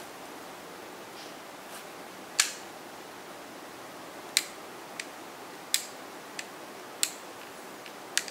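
Daiwa Crosscast 5500 spinning reel clicking as its bail and handle are worked by hand: seven short, sharp clicks at uneven intervals over a steady low hiss.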